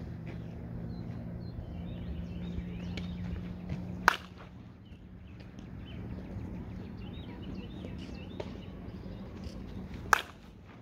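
Two sharp cracks of a slowpitch softball bat striking a self-tossed softball, about six seconds apart, each with a brief ring. A low steady hum and faint bird chirps lie underneath.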